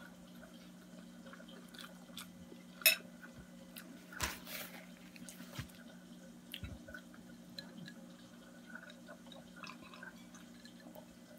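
Quiet eating sounds: soft chewing and small mouth noises from a person eating spaghetti, with a couple of sharp clicks of a bowl and fork about three and four seconds in, over a steady low hum.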